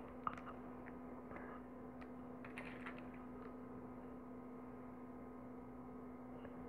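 Faint, scattered small clicks and taps of plastic pearl beads and a needle being handled as a bead is threaded onto nylon thread, over a steady low hum.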